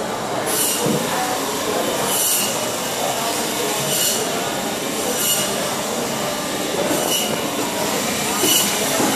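A short, high scraping sound repeating about every second and a half, over a steady background hubbub of a busy indoor hall.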